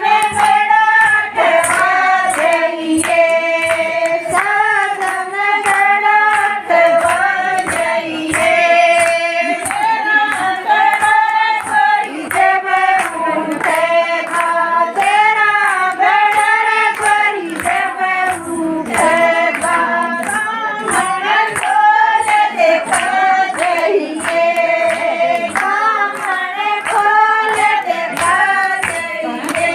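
A group of women singing a Haryanvi folk song together in chorus, keeping time with a steady beat of hand claps.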